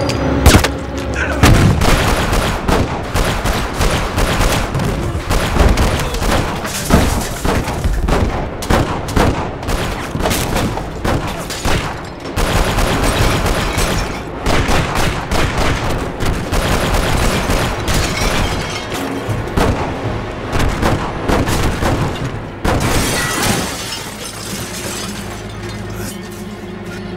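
Action-film sound mix: rapid bursts of gunfire and heavy impacts over music. Near the end the shots thin out and the music carries on alone with held notes.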